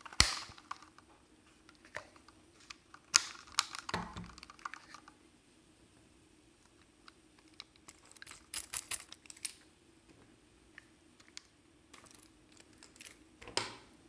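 Small screwdriver and fingers clicking and tapping against the plastic shell of a DJI Mavic Pro drone as its last small cover screws are driven in: scattered sharp clicks, with a quick flurry of them about eight to nine seconds in.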